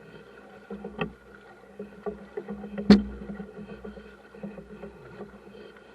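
A boat's motor hums steadily, with a couple of knocks on the boat; a sharp knock about three seconds in is the loudest sound.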